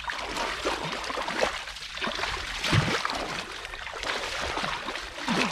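Hands groping and sloshing through shallow muddy water, with irregular splashes and trickles.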